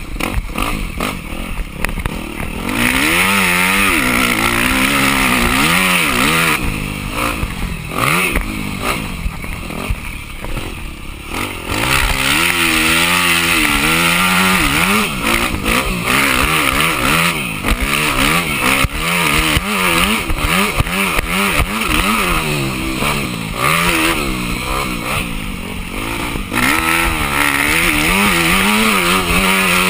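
Yamaha dirt bike engine revving up and down over and over as the rider accelerates, shifts and rolls off the throttle, heard from the rider's helmet camera with wind rushing over it.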